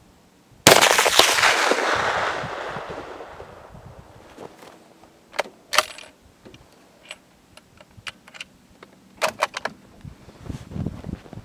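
A single rifle shot about a second in, loud and sudden, its report dying away over about three seconds. A few short, sharp clicks follow later, in two small groups.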